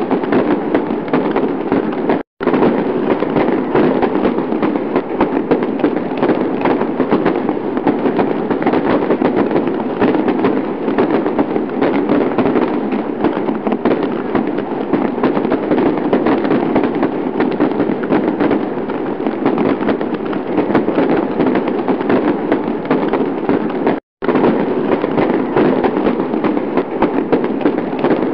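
Firework sound effect: a dense, continuous barrage of crackling bangs and pops, interrupted by two very brief silent gaps, about two seconds in and near the end.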